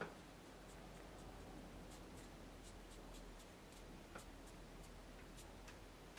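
Faint dabbing and scratching of a flat watercolour brush worked in small strokes on watercolour paper, heard as scattered soft ticks over a low steady hum.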